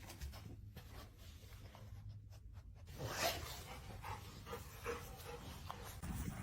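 A dog panting faintly, with a few short breaths that are louder about 3 and 5 seconds in.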